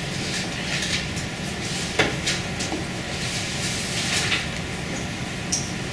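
Room tone: a steady low hum with a few faint rustles and clicks, one sharper click about two seconds in.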